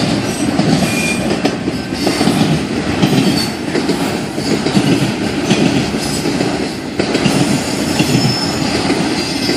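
Long freight train rolling past close by: a steady rumble of the rail cars with a few short, faint wheel squeals now and then.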